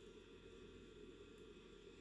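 Near silence: steady low room noise with faint hiss, no audible breath or snore.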